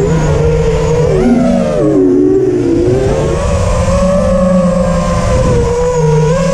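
ImmersionRC Vortex 230 FPV quadcopter's brushless motors and propellers whining in flight. The pitch dips and climbs twice with the throttle in the first couple of seconds, then holds fairly steady.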